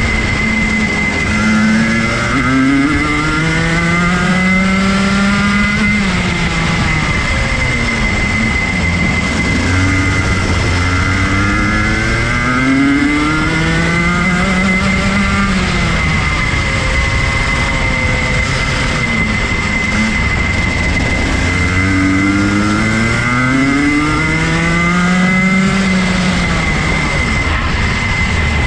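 Rotax Junior Max 125cc single-cylinder two-stroke kart engine at racing speed, heard onboard. Its revs climb steadily for several seconds and then drop sharply, three times, under a hiss of wind and spray and a steady high whine.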